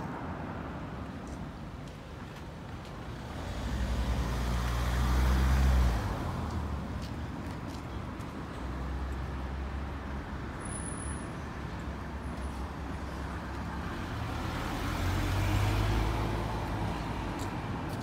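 Road traffic: a steady rumble of passing vehicles that swells twice as vehicles go by, the first ending abruptly about six seconds in.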